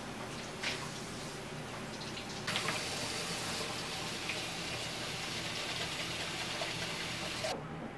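Water running from a kitchen tap into the sink as a steady hiss. It grows louder about two and a half seconds in and cuts off suddenly near the end, with a short knock about a second in.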